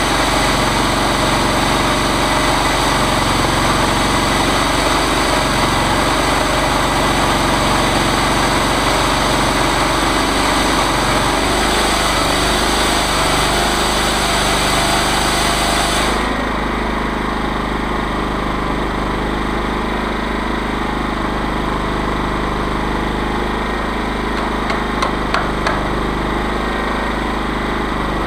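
Chainsaw mill's engine and chain running steadily; about halfway through, the higher part of the noise drops away suddenly while the engine keeps running, with a few light clicks near the end.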